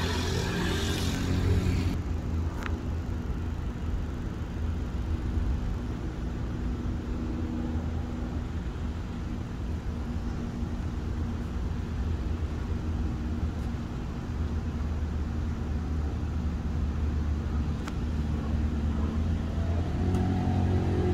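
Quad bike (ATV) engine running as it rides off down the street, fading to a faint distant hum, then growing louder again near the end as it comes back.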